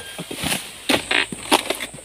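A long oil palm harvesting pole knocking and scraping against the palm's frond bases as it is pushed up into the crown: a string of sharp irregular knocks, about five in the second half. A steady high insect trill runs underneath.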